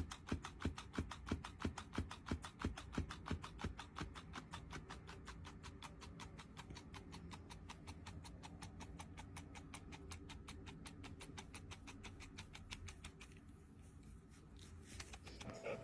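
Faint music with a fast, even ticking beat, fading out and gone about 13 seconds in.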